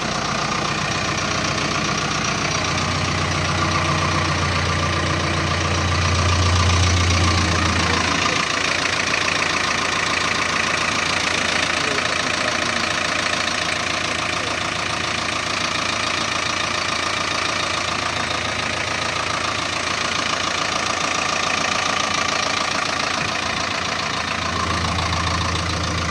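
JCB 3DX backhoe loader's diesel engine running steadily with a knocking diesel clatter. A deep low drone comes in about three seconds in, swells, drops away around eight seconds, and returns near the end.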